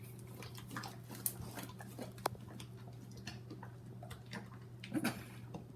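Sticky homemade slime being mixed and squeezed by hand: faint, scattered wet clicks and small squelches over a steady low hum.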